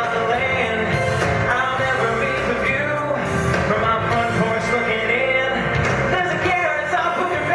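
Man singing a country song into a handheld microphone over instrumental backing music.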